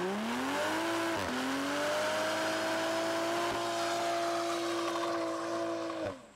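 Toyota GR Supra doing a burnout: the engine revs climb, dip briefly about a second in, then hold steady at high revs over the noise of the spinning rear tyres, and fall away suddenly near the end.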